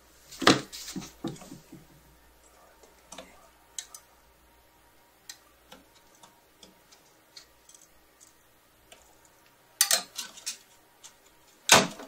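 Scattered light clicks and taps of a screwdriver at the mounting screws of an aluminium CPU heatsink being held onto a 2010 Mac Pro processor tray. Sharper metallic clicks come about half a second in and twice near the end.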